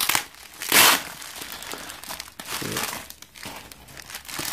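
Clear plastic packaging crinkling and rustling as hands pull it off a smartphone box, with a louder burst of crinkling about a second in.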